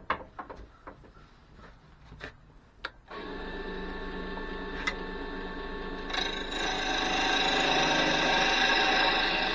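A few light knocks and clicks, then a wood lathe's motor starts about three seconds in and runs at a steady whine. About six seconds in the sound grows louder and rougher as a turning tool cuts the spinning cherry blank.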